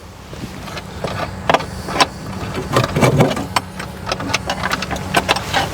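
An engine runs steadily as a low hum, under irregular sharp clicks and knocks of parts being handled.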